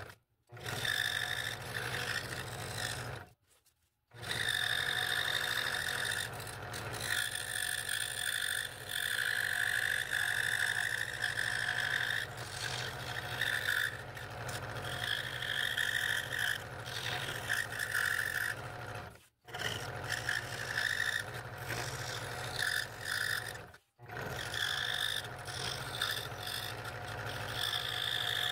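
Scroll saw running, its fine blade cutting fretwork in a thin wooden blank, with a steady motor hum under a higher cutting whine that rises and falls as the piece is turned and fed. The sound drops out to silence for a moment a few times.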